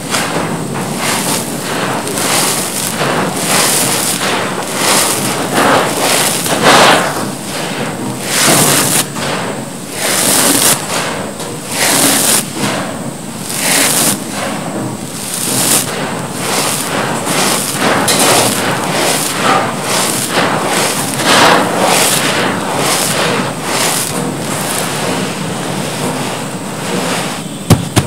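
Hands scooping and crumbling gritty cement powder and small gravel, the grit pouring and crunching down in repeated rushes about once a second. A sharp thud near the end.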